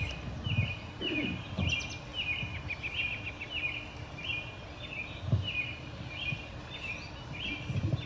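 A bird chirping in a steady repeating pattern, about two short calls a second, over outdoor background noise. A few low thumps are mixed in, the loudest about five seconds in.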